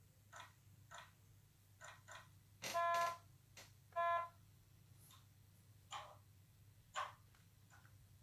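An ESU LokSound sound decoder in an ÖBB CityJet model playing its powering-up sequence through the model's small speaker. Scattered soft clicks of cab switches sound, with two short electronic beeps about a second apart near the middle.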